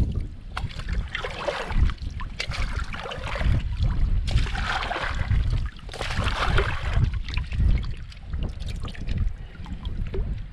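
A plastic water bottle being pushed under the surface of a shallow rocky stream and filled, with water splashing and gurgling in uneven spells. Wind rumbles on the microphone underneath.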